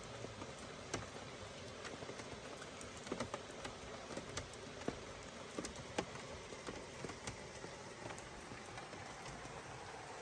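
Steady rain falling, an even hiss broken by scattered single drops landing as sharp taps at irregular intervals.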